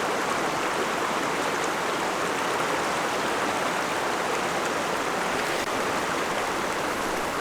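Creek water flowing, a steady, even rush of running water.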